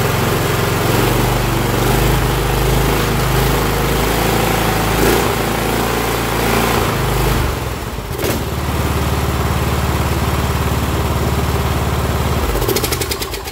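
Cub Cadet LT1045 riding mower's Kohler Courage 20 engine running steadily on its newly replaced carburetor, without surging. Its note changes about eight seconds in, and near the end it is shut off and winds down with a few ticks.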